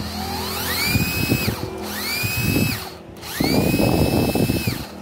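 Cordless 14 V driver motor test-run without load, triggered three times in reverse: each time it spins up with a rising whine, holds steady, then winds down when the trigger is released.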